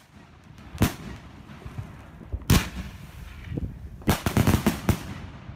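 Fireworks exploding: a sharp bang about a second in, another about two and a half seconds in, then a rapid cluster of bangs around four to five seconds in, with a low rumble between them.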